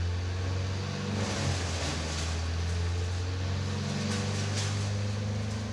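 Steady low drone of a large engine running at a constant speed, with a faint hiss above it; the listener takes it for some big truck.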